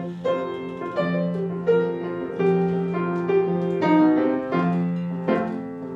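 Piano playing a slow instrumental interlude of sustained chords, a new chord struck about once a second.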